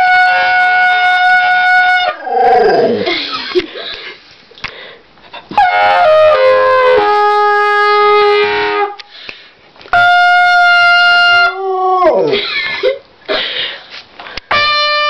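A beginner's trumpet blowing long held notes in four blasts, the second one stepping down in pitch, while a dog howls in falling wails between the notes.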